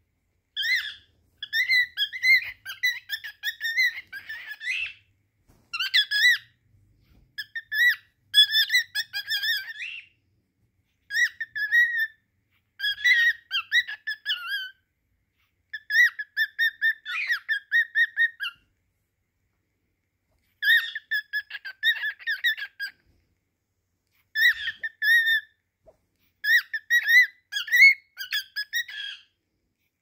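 Cockatiel singing: a string of short, chirpy warbling whistled phrases with brief pauses between them.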